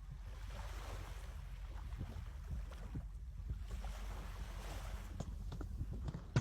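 Wind buffeting the microphone over the wash of sea waves, with a few light clicks near the end.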